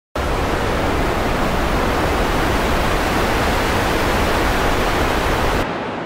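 Steady synthesized noise, the raw material for building ocean-wave sounds, played back through a digital audio workstation. Near the end it stops and a reverb tail fades out.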